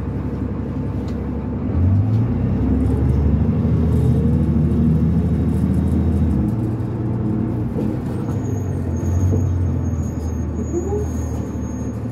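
Cummins ISL diesel engine of a 2005 New Flyer D40LF transit bus with a NABI-style exhaust pipe, heard from on board while the bus is under way. The engine note rises and gets louder about two seconds in as the bus pulls, drops back around six and a half seconds, and picks up again near nine seconds.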